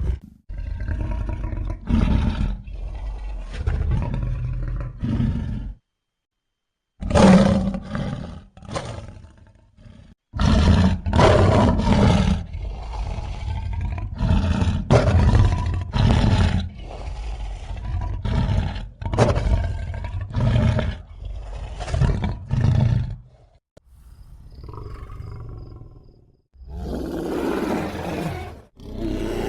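Bear roars and growls edited together as a creature sound effect, a string of short separate calls with a brief dead-silent gap about six seconds in.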